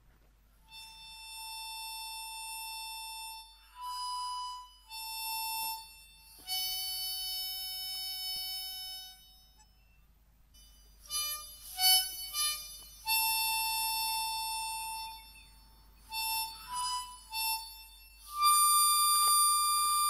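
Harmonica playing a slow tune of long held single notes with short pauses between them, and a few quick short notes about two-thirds of the way through.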